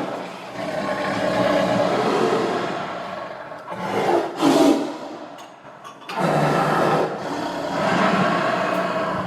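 Tiger growling and roaring in long, rough bouts, with a short, sharp roar about four and a half seconds in and a brief pause just before six seconds.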